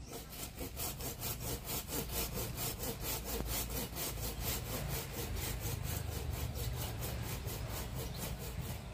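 Hand pruning saw cutting through a live mango tree branch, in quick, even strokes about four to five a second.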